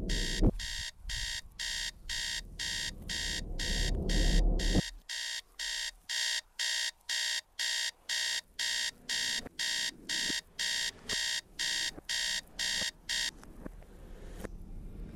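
Electronic wake-up alarm beeping steadily, about two high-pitched beeps a second, until it stops abruptly near the end. A low rumbling noise runs under the beeps for the first five seconds.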